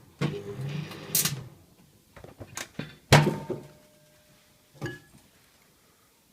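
Microwave oven humming, cutting off about a second in, followed by clicks, a loud clunk of the microwave door with a short metallic ring, and one more click near the end.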